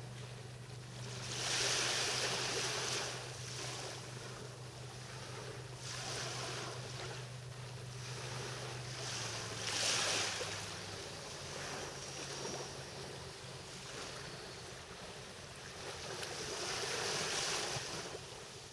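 Small waves breaking gently and washing up a sandy beach on a calm sea, a soft wash every few seconds, loudest about two, ten and seventeen seconds in. Underneath, a low steady hum fades out about ten seconds in.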